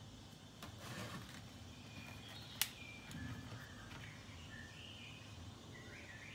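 Kitchen handling sounds as a plastic bottle of cooking oil is picked up beside a gas stove: a brief rustle about a second in, then a single sharp tap. Faint short bird chirps come through in the background.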